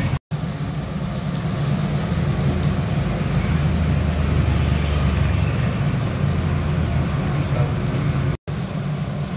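Steady low motor drone, like an engine running nearby, with faint background noise above it. It breaks off for an instant twice.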